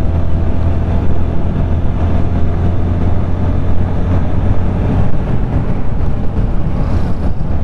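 Motorcycle riding on the highway: a steady low engine drone under wind rush on the mic, the drone easing a little about five seconds in.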